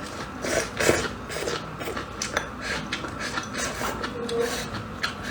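Eating sounds: irregular small clicks and smacks of chewing and taking mouthfuls of food.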